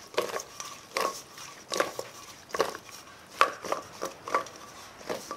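Sliced zucchini tossed in a stainless steel mixing bowl: the slices flop and slap against the metal in a run of short strokes, a little more than one a second.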